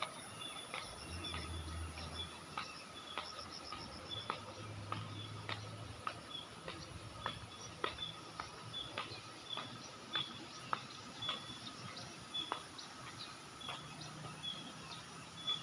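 Insects buzzing and chirping: a steady high buzz with a short high chirp repeating about twice a second, and a brief fast trill in the first few seconds. Light irregular clicks run through it.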